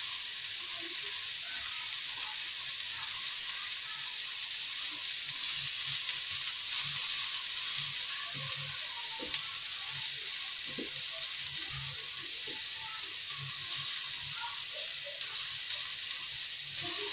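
Boiled sweet potato pieces sizzling in ghee on a nonstick tawa with a steady hiss, while a spatula turns them over with faint scattered ticks and scrapes against the pan.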